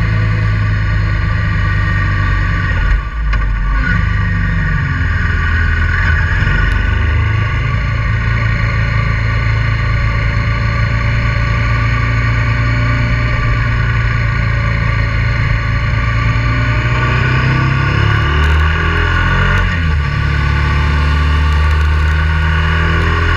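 Honda Transalp 650's V-twin engine running steadily under way. Its note changes briefly about three seconds in and shifts in pitch again near the end as the rider changes speed.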